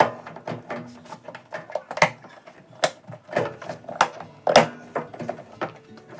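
Irregular clicks and knocks of parts being handled during a washing-machine repair, the loudest about four and a half seconds in.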